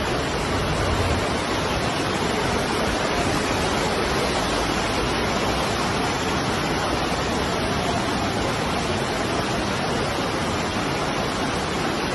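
Muddy floodwater rushing down a street in a torrent: a steady, even rushing of water with no breaks.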